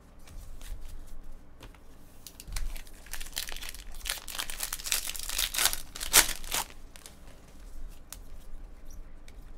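A trading-card pack's wrapper being torn open and crinkled in the hands. The crackly tearing starts a couple of seconds in and runs for about four seconds, loudest near its end.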